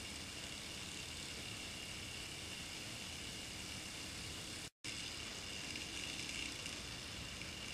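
Brass aeolipile (Hero's steam engine) spinning at high speed, its steam jets giving a steady hiss with a faint high whine. The boiler is nearly dry, the last of the water building up a little more pressure. The sound drops out for an instant about halfway through.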